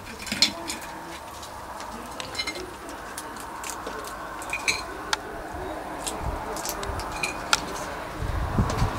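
Hands handling boiled crayfish on a ceramic plate: scattered small clicks and cracks of shells and plate, with a few sharper clicks.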